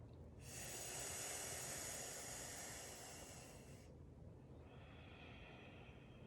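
Sitali cooling breath: a long hissing inhale drawn through a curled tongue, lasting about three seconds, then a softer, quieter exhale through the nose starting about four seconds in.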